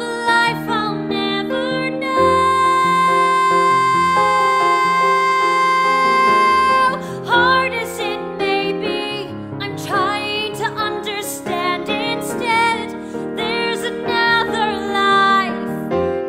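A woman singing a musical-theatre song over piano accompaniment. She holds one long note for about five seconds, then moves into shorter phrases.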